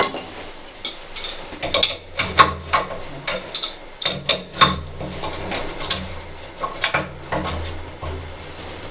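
Irregular metallic clicks and clinks of a wrench working on brass and copper plumbing fittings at a well pressure tank, as a copper end fitting is loosened.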